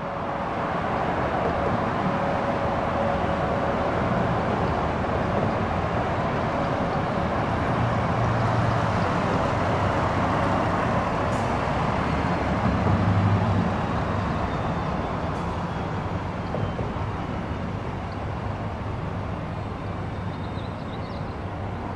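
Embraer E175 regional jet's twin General Electric CF34 turbofans as the aircraft comes in to land: a steady jet rush with low rumble that swells to its loudest about 13 seconds in, then slowly fades.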